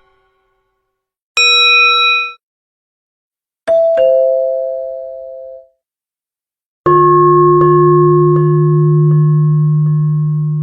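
A series of bell sounds: a short bright ding that cuts off after about a second, then a two-note ding-dong like a doorbell chime, higher note first, then a deeper bell struck again and again, about once every three-quarters of a second, its ringing held long.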